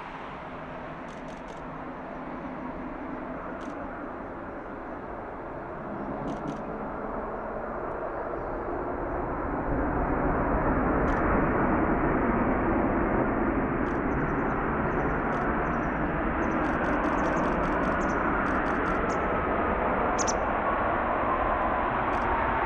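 Jet engines of an Airbus A350-900 landing, their Rolls-Royce Trent XWB engines growing louder and becoming a steady loud rush about ten seconds in. Near the end an engine whine falls in pitch.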